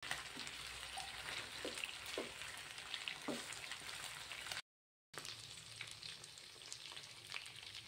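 Chicken pieces sizzling and crackling in hot oil in a nonstick frying pan, with a few short scrapes as a spatula turns them. The sound drops out for about half a second midway, then the sizzling resumes.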